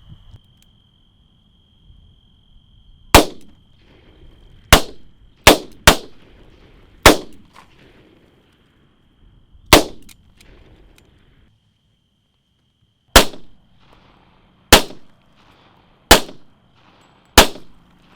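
Ten gunshots fired one at a time at irregular gaps, several in quick succession near the start, as Funko Pop figures are shot up. A faint steady high tone sounds behind them.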